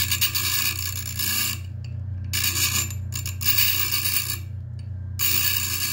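The end of a threaded steel bolt being ground on the wheel of a 1930s Leland Electric bench grinder to chamfer it: three grinding passes, each about one to two seconds long, over the steady hum of the grinder's repulsion-induction motor.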